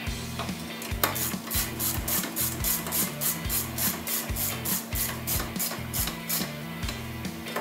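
Hand ratchet driving a 12 mm socket, its pawl clicking in short bursts about three times a second as the jet pump nozzle bolts are run down and tightened. The clicking starts about a second in.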